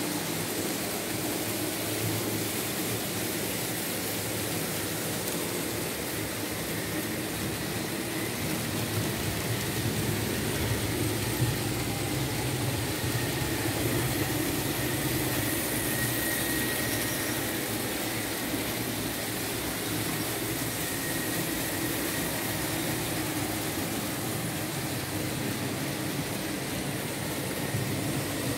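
Märklin H0 model BR 18 steam locomotive running with its compartment coaches: a steady rumble of the motor and of the wheels on the track. A faint thin whine comes and goes about halfway through.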